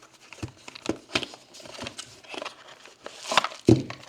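Hands handling LiPo battery packs and their packaging: a run of light clicks, knocks and rustles, with a louder cluster of knocks about three and a half seconds in.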